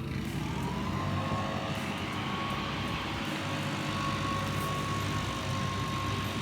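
A steady engine drone with a held, even whine that comes in just after the start.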